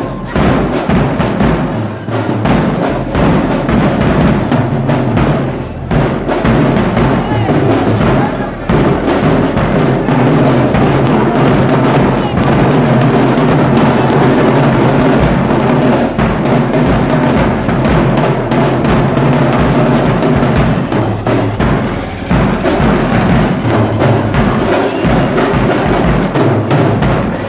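Marching band drumline with bass drums playing a loud, continuous cadence.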